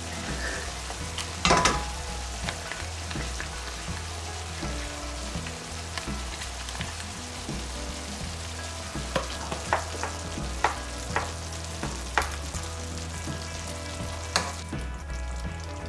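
Beef and mushrooms sizzling in a frying pan while a wooden spoon stirs them, with a few sharp knocks of the spoon against the pan, most of them in the second half.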